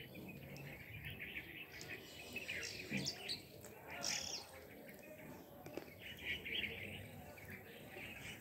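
A flock of small birds chirping and chattering as they feed, with many short overlapping chirps that come thickest about two to three seconds in and again around six seconds in.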